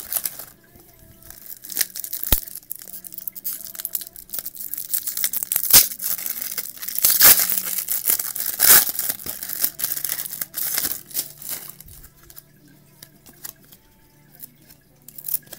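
A 1995-96 Topps basketball retail trading-card pack wrapper crinkling and being torn open, loudest about seven to nine seconds in, then quieter rustling as the cards are handled.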